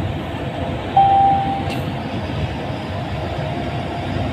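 Steady engine and road rumble inside the cab of a truck driving at highway speed. About a second in, a short steady tone sounds for roughly half a second.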